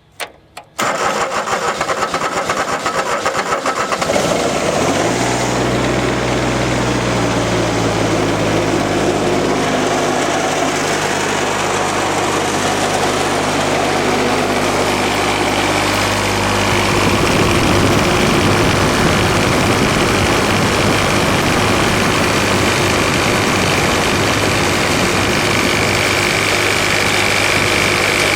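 Kubota D722 three-cylinder diesel cranked by its starter after a couple of clicks, catching about four seconds in and then running steadily at idle, its note shifting a little about halfway through.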